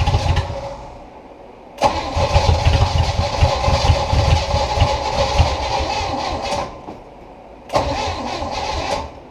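Starter cranking a Chevrolet 350 small-block V8 boat inboard in three bursts: one trailing off at the start, a long one of about five seconds, and a short one near the end. The engine turns over without catching. The owner blames spark plugs fouled with gunk sucked in from the intake.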